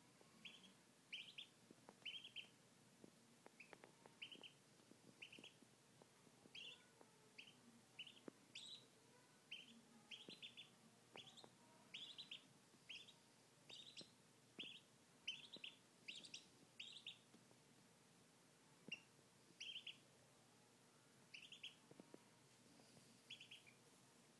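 A duckling peeping: short, high peeps, one or two a second, with a pause of about two seconds about three-quarters of the way through. A few faint ticks come between the peeps.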